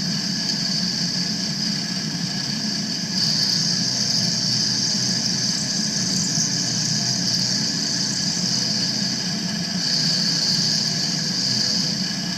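Milling machine running, its cutter taking a pass around the outline of a Stearns sprinkler window: a steady machine hum under a high cutting hiss that gets louder for a few seconds about three seconds in and again near the end.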